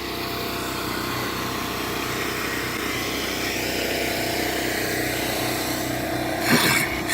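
Concrete saw with a diamond blade running steadily as it cuts a control joint into a concrete slab, with a brief louder burst about six and a half seconds in.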